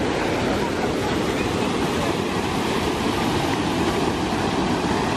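Water rushing over rocks and pouring down a small waterfall: a steady, unbroken rush.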